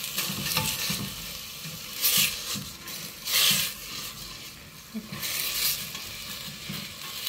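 Chopped carrots and other vegetables sizzling in hot oil in a stainless steel pot while a silicone spatula stirs them, with three louder swishes of the spatula.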